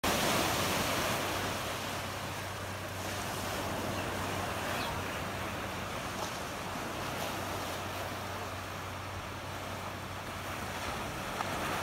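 Steady rush of ocean surf with low waves breaking, with some wind on the microphone.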